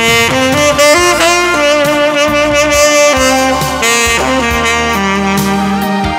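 Saxophone played in a low register, carrying a legato melody over a backing track with a bass line and a steady beat.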